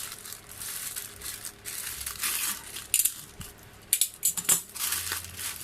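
Handling and opening the packaging of a small screwdriver set: a crinkling rustle with several sharp clicks and rattles, the loudest cluster about four seconds in.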